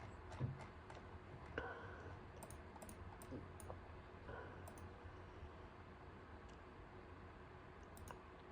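A few faint, scattered clicks over a low steady hum: near-quiet room tone.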